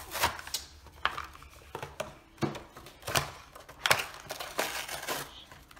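Cardboard toy packaging being pulled apart and torn by hand: irregular crackles and rips, several in a row.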